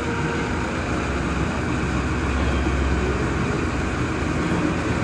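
Steady low mechanical rumble with a constant hiss over it, with no distinct strokes or changes.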